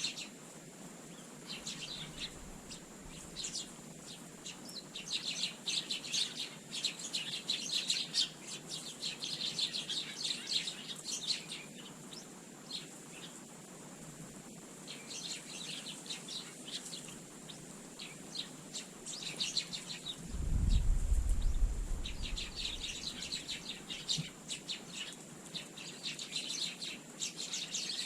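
A flock of Eurasian tree sparrows chirping in quick clusters of short calls, with pauses between. About two-thirds of the way through, a brief low rumble is louder than the chirping.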